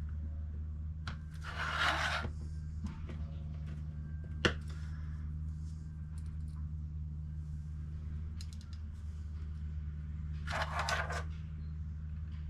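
Hands handling a new carbon monoxide detector and its plastic packaging: two short rustling scrapes and one sharp click, with a few faint ticks, over a steady low hum.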